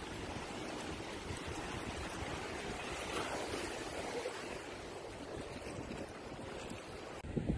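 Shallow surf washing in and foaming around a wading dog's legs at the water's edge: a steady hiss of breaking water with wind on the microphone. Near the end it cuts abruptly to louder gusts of wind noise.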